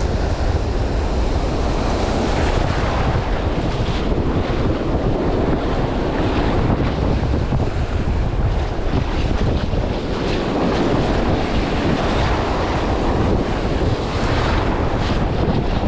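Steady wind buffeting the microphone over the wash of breaking surf.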